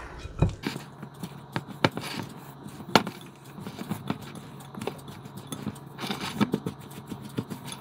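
Silicone spatula stirring mashed potato in a glass bowl, knocking and tapping irregularly against the glass, with the sharpest knock about three seconds in.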